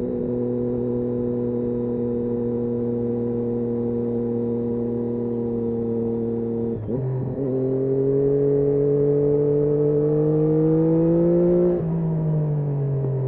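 Triumph Daytona 675's inline three-cylinder engine under way: a steady engine note, a short break about seven seconds in, then the pitch climbs slowly as it accelerates, until near the end it drops suddenly and the revs fall away as the throttle closes.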